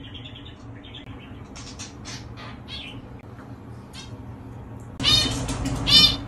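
Faint background with a few small clicks, then about five seconds in two high, arching meow-like cries.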